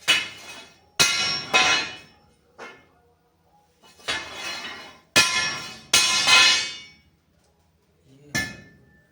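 Steel angle iron clanging: about nine irregular metal strikes, some in quick pairs, each ringing briefly.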